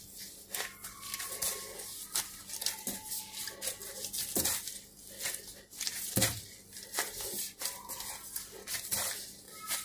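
Play dough being kneaded by hands in plastic gloves on a stone countertop: irregular soft thumps of the dough pressed on the counter, mixed with crinkling of the gloves.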